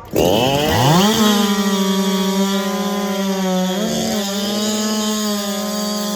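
Two-stroke racing chainsaw of the 90cc-and-under class revving up right after the start signal and running at full throttle, most likely cutting through a log. The engine note climbs steeply in the first second, then holds steady, sagging briefly and recovering about four seconds in.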